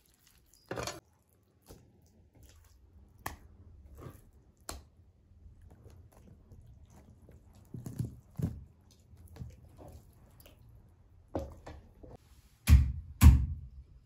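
Scattered soft clicks and knocks of hands working raw chicken on a wooden cutting board, then two heavy thuds about half a second apart near the end: a meat cleaver chopping down onto the board.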